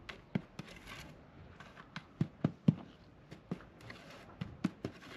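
Irregular light clicks and knocks, about a dozen, the loudest near the middle: handling of the oven base's fill of broken glass and salt.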